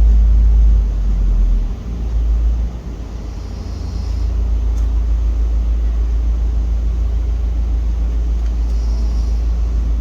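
Steady low rumble, heavier in the first two seconds, with a faint brief hiss twice.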